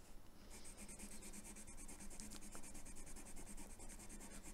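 Derwent metallic watercolour pencil scribbling on black paper in rapid, even back-and-forth strokes, starting about half a second in.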